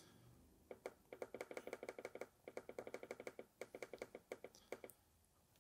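Faint, rapid run of short beeps, several a second, from the Bio-PRF centrifuge's keypad as its speed button is pressed to step the setting down toward 700 G. The run starts about a second in and stops shortly before the end.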